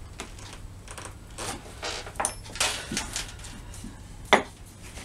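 Oak blanks being handled on a wooden workbench: a series of short scrapes and knocks as an awl marks their end grain and the blocks are gathered up, with one sharp knock about four seconds in.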